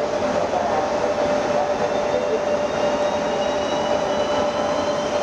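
České dráhy Class 380 (Škoda 109E) electric locomotive and its EuroCity coaches rolling slowly through a station, a steady whine over running noise. Faint higher tones rise slowly in pitch from about two seconds in.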